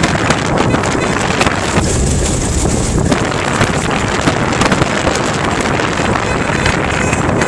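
Off-road four-wheel drive running as it climbs a rough bush track, with wind buffeting the microphone and frequent knocks and rattles from the bumpy ride.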